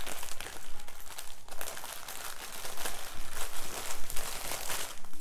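Plastic packaging crinkling and rustling as it is handled, a continuous run of small crackles.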